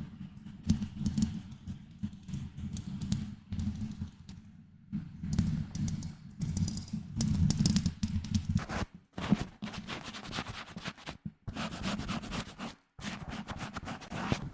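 Fingers scratching and tapping directly on a microphone: quick, irregular scratchy strokes over a heavy low handling rumble, broken by a few brief pauses in the second half.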